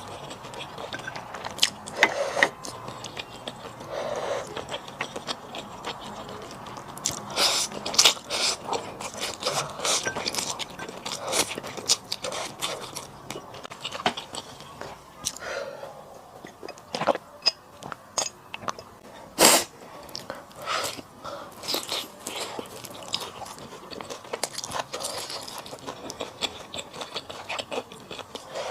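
A person eating close to the microphone: irregular chewing and mouth sounds with many short, sharp clicks.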